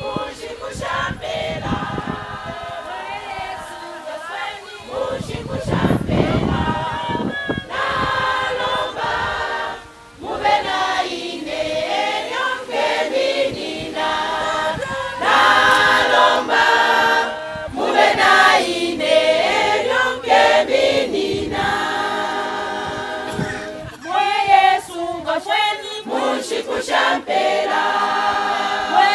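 A cappella choir singing, several voices together without instruments.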